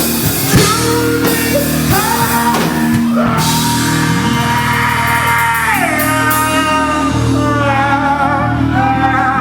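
Live rock band playing: drums, guitar and bass under a singer holding long notes. The drums and cymbals stop about three seconds in, leaving the held vocals over the guitar and bass.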